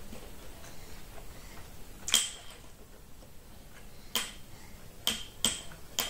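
Eating sounds: about five sharp, short clicks at irregular intervals, the loudest about two seconds in, while a person chews boiled maize kernels.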